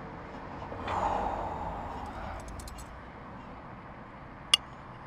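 Knife and fork clinking and scraping on a ceramic plate as meat is cut: a quick run of light clinks, then one sharp clink near the end. Under it is a steady outdoor background hum, with a brief swell of rushing noise about a second in.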